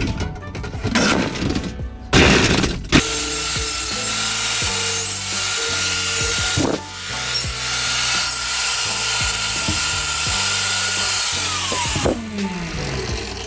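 A handheld power tool cutting, running steadily and then winding down with a falling pitch near the end, after a few knocks at the start. Background music with a bass line plays throughout.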